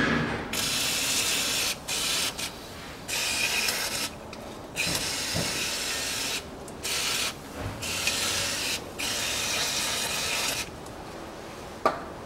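Aerosol cleaner spray can hissing in about seven bursts of varying length as it washes oil drips off a rear differential housing. A single sharp click near the end.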